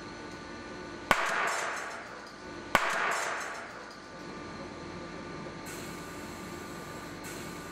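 Two loud bangs about a second and a half apart, each followed by a hiss that dies away over about a second: counterfeit steel nitrous-oxide cream chargers bursting from the heat in a test oven. A steady machine hum runs underneath.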